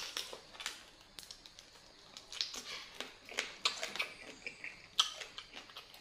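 Close-miked chewing and sucking on fresh blue swimming crab meat, heard as a run of irregular sharp clicks and mouth noises.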